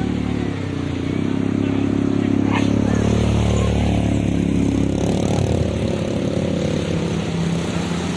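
A motor engine running, its pitch drifting up and down as it speeds up and slows.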